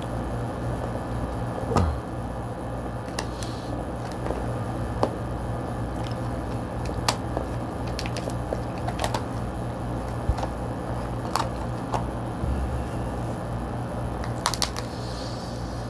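Kitchen scissors cutting through cooked king crab leg shell: sharp cracks and snips scattered irregularly, the loudest about two seconds in and a quick cluster near the end. A steady low hum lies underneath.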